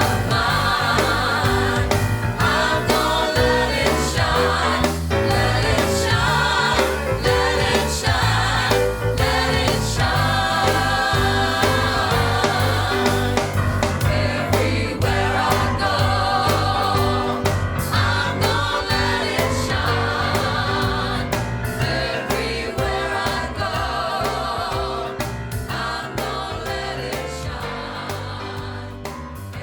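Upbeat music with group singing over a steady bass and beat, fading out near the end.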